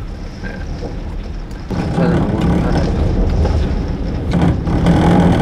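Strong typhoon wind buffeting a caravan: a continuous low rumble that grows louder about two seconds in, joined by a low droning hum, the caravan's window vibrating in the gusts.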